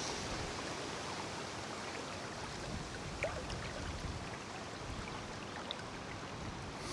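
Fast river water rushing steadily, high after a recent spate, with gusty wind buffeting the microphone as a low, unsteady rumble.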